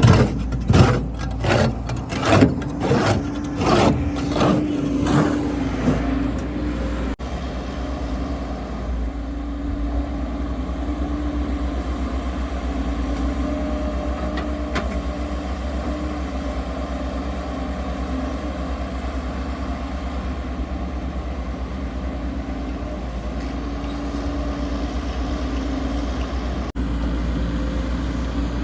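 Heavy earthmoving machine's diesel engine running steadily, with a low rumble and a held tone. For the first several seconds a quick run of loud knocks and clatters sounds over it, about two a second.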